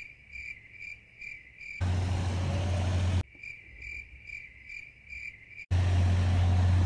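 Insect chirping: a high, even chirp repeating about twice a second. It breaks off twice for a loud low rumble, about two seconds in and again near six seconds.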